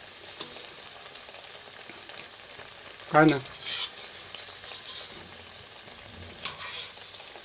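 Cabbage vadas deep-frying in hot oil in a kadhai, a steady sizzle. A wire spider skimmer scrapes and clinks against the pan several times from about halfway on as the vadas are lifted out.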